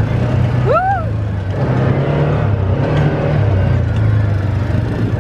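A motor vehicle running steadily, with a low drone whose pitch shifts slightly. About a second in comes one short tone that rises and then falls.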